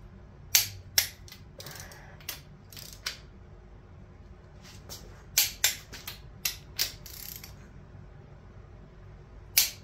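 Torque wrench ratcheting and clicking while cylinder head bolts are torqued down: a series of sharp metallic clicks, some in pairs, with short ratchet runs between them.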